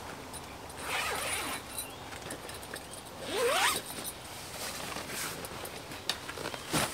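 A zipper being pulled twice: a short zip about a second in, then a longer one that rises in pitch about three and a half seconds in, with a few light clicks and knocks around it.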